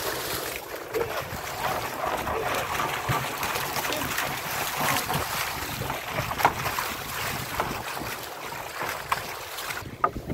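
Wind and water noise on a small boat at sea, with scattered short knocks and splashes throughout.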